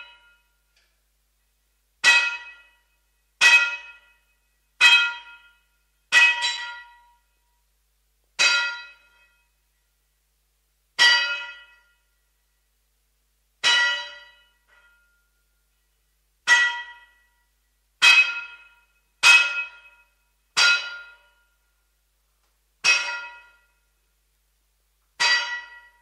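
Blacksmith's hammer striking metal: about a dozen separate blows, unevenly spaced a second or two apart, each ringing out with a bright metallic clang that dies away within about a second.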